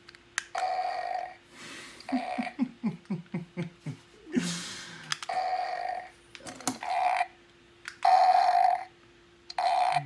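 Fart sound effects played through the small built-in speaker of a Pile Driver remote-control poop toy: several short tinny blasts one after another, some as rapid sputtering runs, over a faint steady electronic tone.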